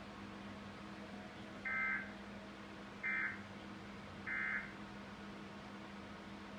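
Emergency Alert System end-of-message tones: three short bursts of warbling digital data tones, each a little over a second apart, marking the end of the alert.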